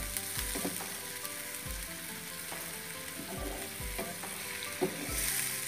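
Ground onion paste sizzling in ghee and oil in a non-stick frying pan, stirred with a wooden spatula. The spatula knocks softly against the pan every second or so, at uneven intervals.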